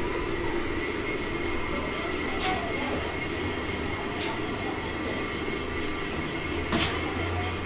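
Steady mechanical rumble with a low hum and a faint high whine, broken by a few light knocks, the loudest about seven seconds in.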